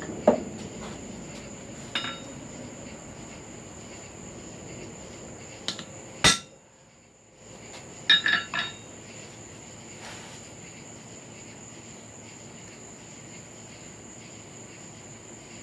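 Hammer blows on hot steel over an anvil: a few scattered strikes, the loudest about six seconds in, then a quick run of three about two seconds later, some with a short metallic ring.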